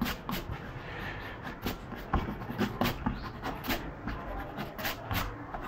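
Faint, irregular clicks and light rustling from a hand handling the drawing paper, over a low background rumble.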